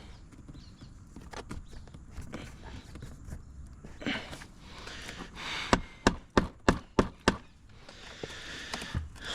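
Handling noise from the drilled-out BMW door-pull assembly as it is worked loose: light rustling, then a quick run of about eight sharp clicks and knocks from about four seconds in.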